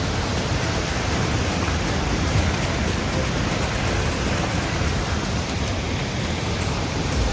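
Akiu Great Falls waterfall carrying a heavy flow of water, heard close up as a loud, steady, even rush of falling water.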